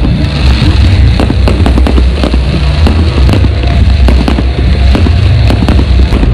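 Fireworks going off in quick succession, many sharp cracks and pops with crackling, over music with a heavy steady bass.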